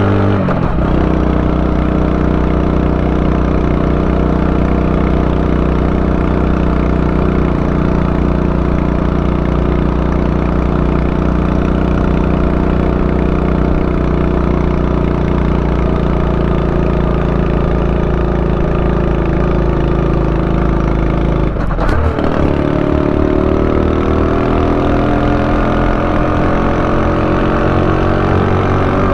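Honda Super Cub 90's small single-cylinder four-stroke engine running at a steady pitch. About three-quarters of the way through there is a brief break, like a gear change, after which the engine note climbs gradually as it picks up revs.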